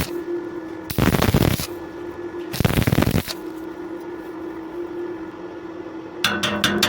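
Stick (arc) welding on thin metal. The arc crackles in two short bursts, each under a second, one about a second in and one a little after two and a half seconds, with a steady hum between them. The short bursts suit stitch-welding, where the arc is struck and broken to keep heat down on thin metal. Near the end a fast, even tapping starts.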